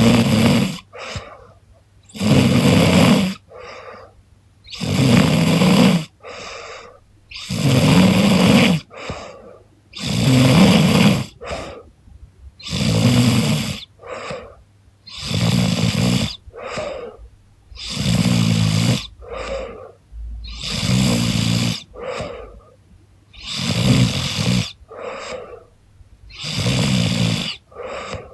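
A young woman snoring in her sleep. A loud snore comes roughly every two and a half seconds, with a softer breath sound between each pair, about eleven snores in a steady rhythm.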